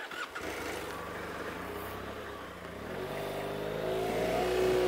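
BMW F800GS motorcycle's parallel-twin engine pulling away, running steadily at first and then accelerating with a rising pitch from about three seconds in.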